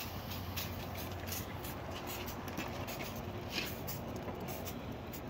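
Wood fire crackling in a small steam boiler's firebox: irregular sharp crackles and pops, a few a second, over a steady hiss and low hum.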